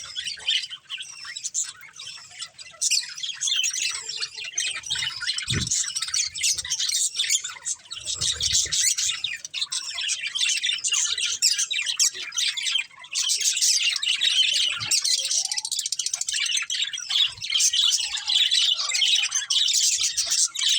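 Several budgerigars chattering and chirping continuously, a dense mix of quick high warbles and squawks.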